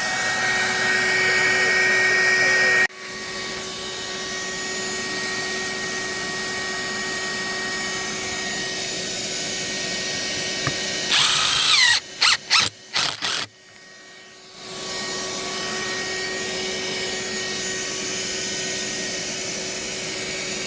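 A steady motor hum runs throughout, and about 11 seconds in a power drill runs in several short on-off bursts, spinning up and down, as if driving screws.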